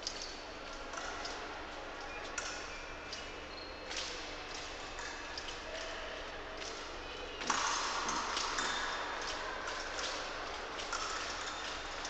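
Large sports hall ambience with scattered sharp clicks and metallic pings. A louder din sets in about seven and a half seconds in.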